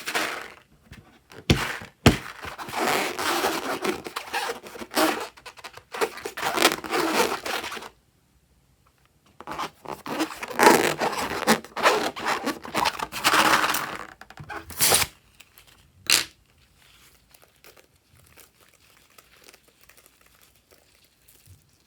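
Crackling, crinkling handling sounds of slime being made from a balloon's contents: two sharp clicks near the start, then two long spells of crackling of about six and five seconds, a last click, and faint rustling.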